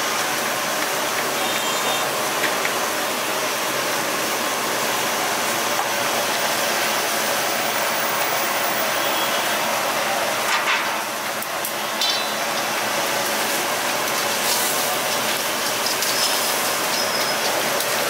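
Chicken karahi gravy bubbling and sizzling hard in oil in a steel karahi over a high gas flame: a steady hiss, with a few short clicks.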